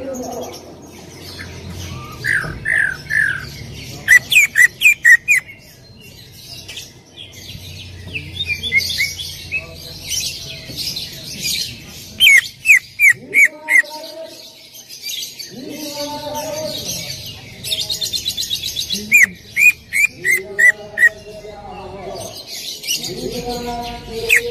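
Greater green leafbird (cucak ijo) singing: runs of loud, quick downward-swept whistles, five or six at a time, alternating with rapid high chattering. A lower, rougher phrase comes in the middle and again near the end.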